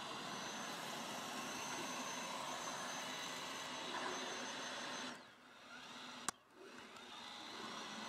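Puppyoo R6 Home robot vacuum-mop running on a hard tile floor: a steady whirring hiss from its suction fan and brushes, with a faint high whine. About five seconds in the sound drops away briefly, a single sharp click follows just after six seconds, and the running sound then picks up again.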